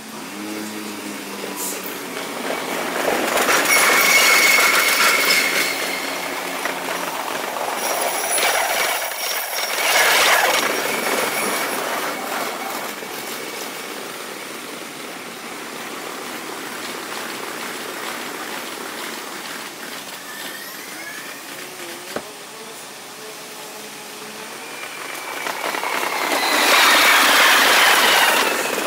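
Kintetsu electric trains running over the tracks, their sound sped up five times. The wheel-and-rail noise swells and fades three times: about three seconds in, with a thin high squeal, again around ten seconds, and loudest near the end as a train passes close by.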